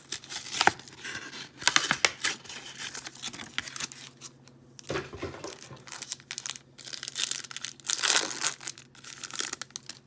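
A Yu-Gi-Oh trading-card pack's packaging being torn open and crinkled by hand, in irregular rips and rustles with a few sharper tears.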